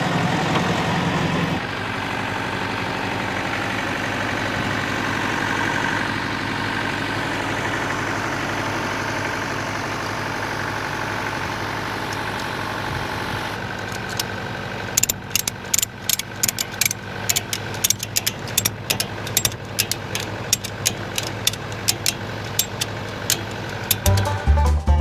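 Kubota tractor's diesel engine running, louder for the first second or two and then settling to a steady, lower run. From about fifteen seconds in, a quick, uneven run of sharp clicks joins it: a ratchet strap being cranked tight over round hay bales on a trailer.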